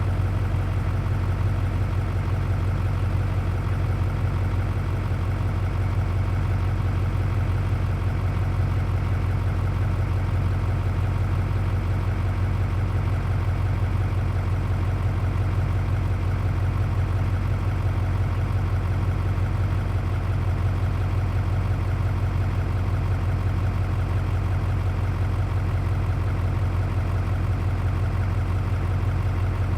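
Diesel V8 engine idling steadily, with an even low drone.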